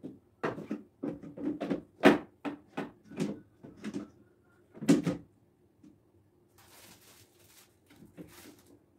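Knocks and taps of things being handled in a bathroom sink cabinet, about a dozen in the first five seconds with the loudest two about two and five seconds in, followed by soft rustling.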